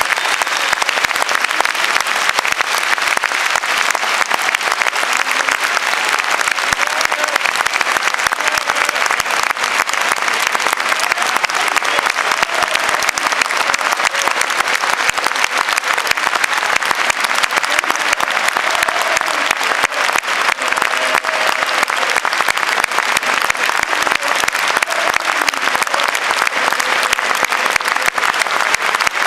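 Large stadium crowd of football supporters applauding, a dense unbroken clatter of clapping that holds steady throughout.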